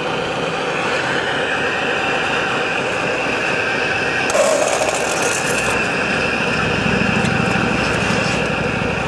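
Radio-controlled model construction machines working: small electric motors and gearboxes whining steadily, with a short hiss about four and a half seconds in and a low rumble joining from about six seconds.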